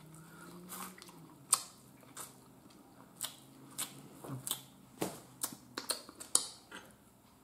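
Close-up eating sounds: chewing with a string of short, sharp wet lip smacks, about a dozen spread over the last six seconds, after a soft low hummed "mmm" in the first second.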